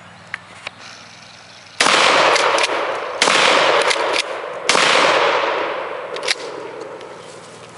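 Three 12-gauge shotgun blasts from a Mossberg 535 pump-action, about a second and a half apart, each followed by a long echo; the last echo dies away slowly.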